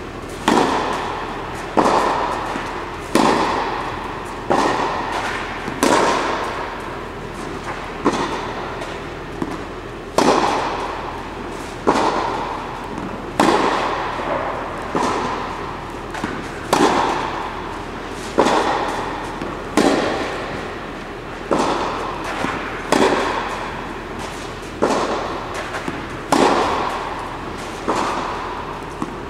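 Tennis rally on a clay court: sharp racket strikes on the ball about every one and a half seconds, each ringing out in a long echo off the surrounding walls.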